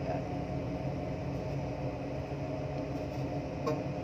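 Steady low mechanical hum, with a faint brief sound near the end.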